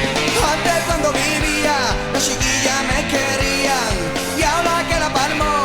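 Rock-style song music with a steady drum beat and melodic lines that slide up and down in pitch, without clear words.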